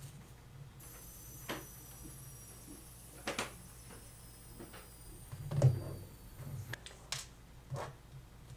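Scattered small clicks and taps of steel tweezers and a metal watch-movement holder being handled on a bench while a Seiko 6139 chronograph movement is reassembled. The loudest tap, with a dull thump, comes a little past halfway.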